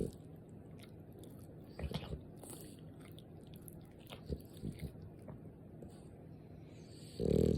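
French bulldog snoring in its sleep: one loud snore near the end, with soft wet mouth clicks and smacking a couple of times in between.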